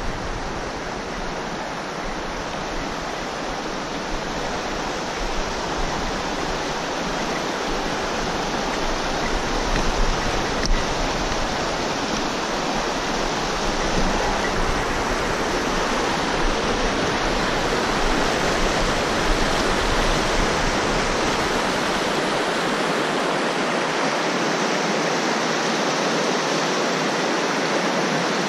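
Steady rush of a stream's running water, slowly growing louder; a low rumble underneath drops away about twenty-two seconds in.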